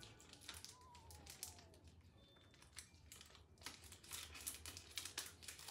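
Faint crinkling of a plastic snack wrapper being handled, soft scattered crackles that get busier in the last two seconds.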